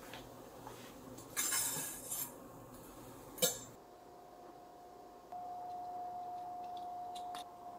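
Cubed squash scraped off a wooden cutting board with a knife and sliding into a ceramic slow-cooker crock, followed by one sharp clink. Then a steady high-pitched tone runs through the second half, louder for a couple of seconds near the end.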